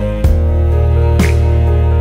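Instrumental background music: sustained chords over a deep, steady bass, with a drum hit about a quarter second in and another just past a second.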